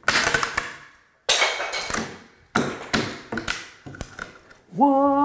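A series of sharp taps and knocks on a wooden interior door, about seven in all, as the door is worked against its newly adjusted spring-loaded ball catch. Near the end a short pitched hum rises briefly and then holds steady.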